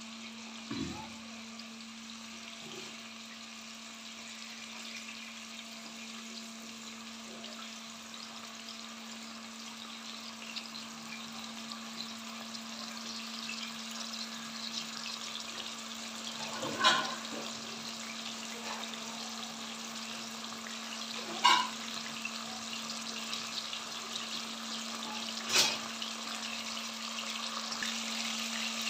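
Sliced onions frying in hot oil in a metal pot: a steady sizzle that slowly grows louder, over a steady low hum. Three short sharp knocks sound about halfway through and twice more toward the end.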